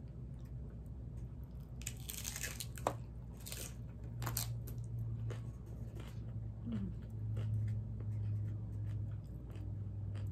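Crunchy fried corn taco shell bitten into, a few loud crunches about two to four and a half seconds in, followed by quieter chewing.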